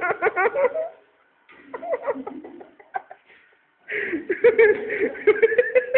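Men laughing in rapid bursts with some shouting, broken by two short pauses, one about a second in and one a little past the middle.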